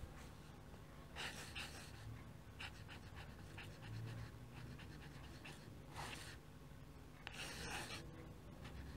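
A pen nib scratching across paper in short, faint strokes as a looping signature is written, the longest stroke near the end.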